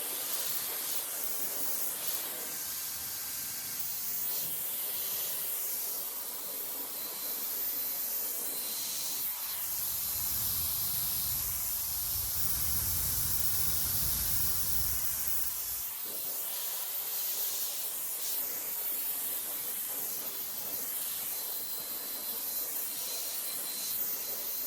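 Brushless hair dryer running: a steady rush of blown air with a faint high whine. A low rumble joins in from about ten to sixteen seconds in.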